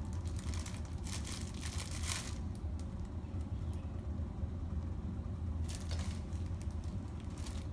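Plastic bag of drinking straws crinkling in several short bursts as a toddler handles it, over a steady low hum.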